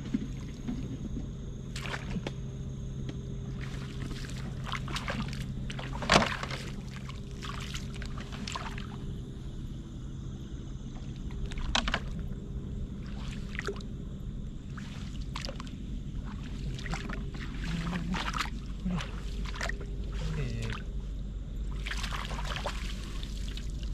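Shallow seawater splashing and sloshing irregularly as a person wades and sweeps a long-handled scoop net through it, over a steady low hum.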